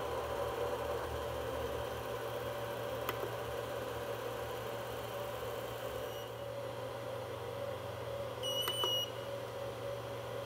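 Tevo Tornado 3D printer's cooling fans whirring steadily while the print is paused and the nozzle reheats. There is a faint click about three seconds in, and a short high beep from the printer's control-panel buzzer near the end.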